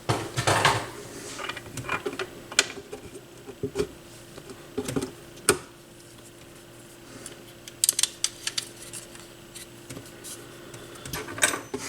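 Irregular light clicks and taps of small parts being handled while a replacement tonearm is fitted to a Micro Seiki turntable, with a faint steady hum underneath.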